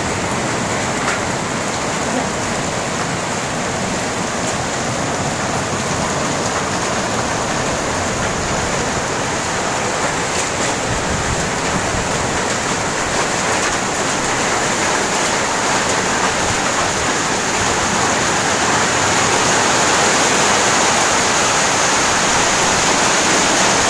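Heavy rain pouring steadily in a storm, falling on corrugated iron roofs and fences; it grows a little louder over the last several seconds.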